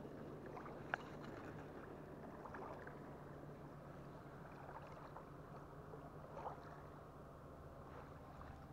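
Quiet waterside ambience: a faint steady low hum under a light hiss, with a light click about a second in and another soft one near six and a half seconds as the spinning rod and reel are handled.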